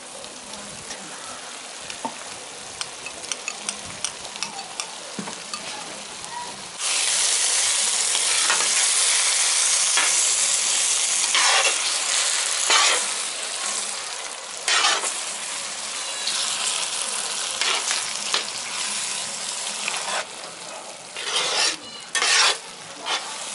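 Kadai paneer gravy in a large iron kadai, with a white creamy mixture just added, frying and being stirred with a slotted metal spatula. The sizzle jumps suddenly loud about seven seconds in, then eases, with several louder scrapes of the spatula through the curry.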